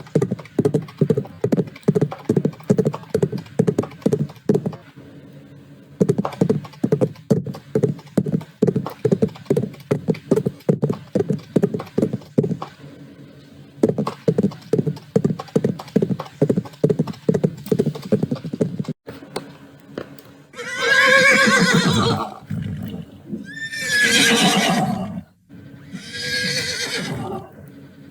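Horse sound effects: hooves clip-clopping in an even trot, in three runs with short breaks, then three long whinnies near the end.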